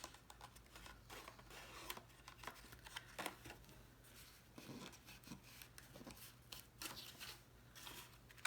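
Faint rustling and light taps of card stock being handled and pressed together, in scattered short bursts over a steady low hum.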